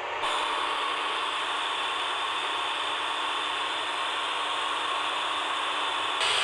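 Portable radios tuned between stations, giving a steady static hiss through their small speakers. A little after six seconds in, the hiss turns brighter and a bit louder as the tuning shifts.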